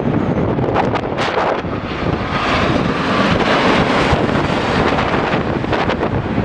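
Strong gusting wind buffeting the microphone. Under it, a jet airliner's engine noise swells through the middle and eases off again.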